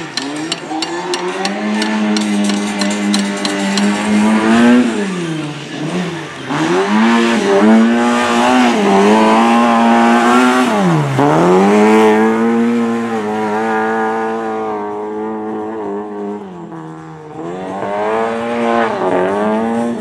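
Lada rally car's four-cylinder engine running at high revs while the car slides on a dirt track. The engine note drops sharply and climbs back again around five and eleven seconds in. It grows fainter in the latter part, then picks up again near the end.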